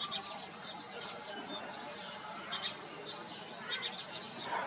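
Small birds chirping in short, high calls every second or so, over a steady outdoor background hiss.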